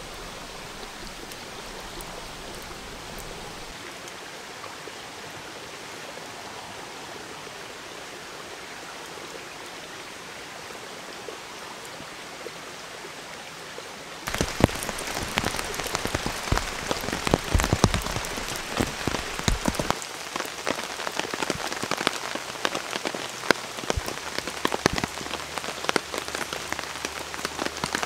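A steady, even hiss for the first half, then from about halfway in rain hitting the camp tarp overhead, louder, in dense, irregular drops.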